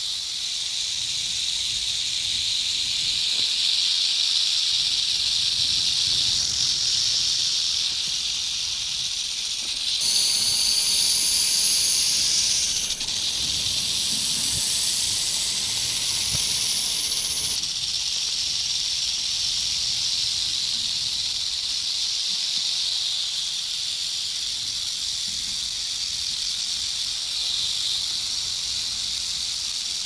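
Snake hissing: a continuous breathy hiss. From about ten seconds in until past the middle, a louder, sharper hiss is layered on top, then it drops back to the steadier hiss.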